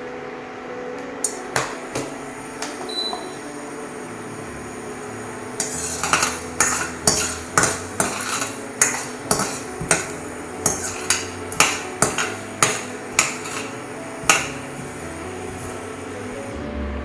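Spatula scraping and knocking against a pan while stirring coriander seeds as they dry-roast. A few scattered knocks at first, then about two strokes a second from about six seconds in.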